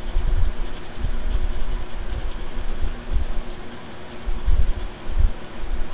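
A scratch-off card being scratched by hand, with irregular low thumps and rumble over the faint steady hum of an electric fan.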